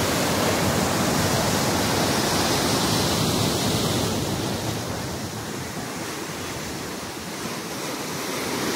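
Sea surf breaking and washing over rocks, a steady rush that eases after about five seconds and builds again near the end.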